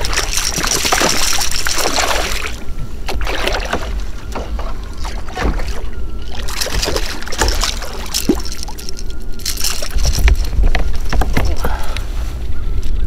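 Water splashing and sloshing around a fishing kayak as a hooked smallmouth bass is played to the boat, with irregular knocks and rustles of rod and reel handling and a steady low rumble.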